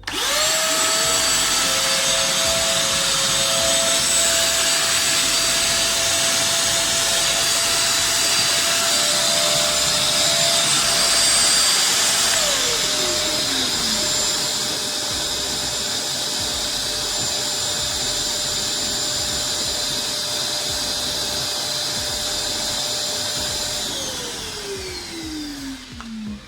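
Two vacuum cleaner motors running. A Forte vacuum plugged into the active outlet of a Vitals Master PS 3014SPsw construction vacuum is switched on, and the Vitals starts by itself a moment later. About halfway through the Forte is switched off and its whine falls away. The Vitals runs on for roughly ten more seconds, its delayed shut-off for clearing leftover dust, then winds down near the end.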